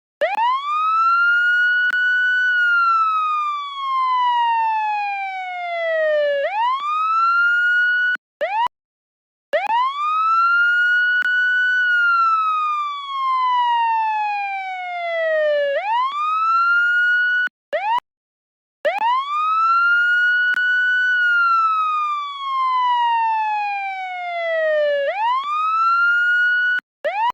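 Police siren in a wail pattern: a clean tone sweeps quickly up, holds, then slides slowly down and sweeps back up. The cycle repeats about every nine seconds, with a sudden silent break of about a second between cycles.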